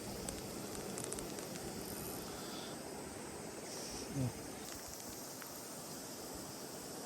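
Steady outdoor hiss with faint high chirps, like insects, in the first second or so. About four seconds in comes a brief low falling sound, the loudest moment.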